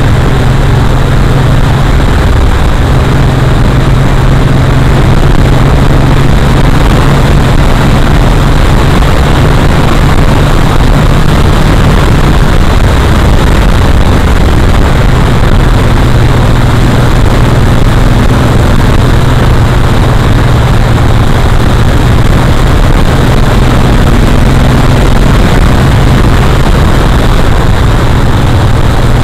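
Vehicle engine running at a steady cruising speed, heard under loud, constant wind and road noise on an onboard camera's microphone, with the low engine hum shifting slightly in pitch as the speed changes.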